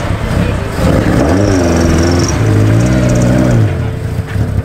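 Small roadster's engine running loud as it pulls away, blipped twice so the pitch rises and falls about a second and a half in and again near three seconds.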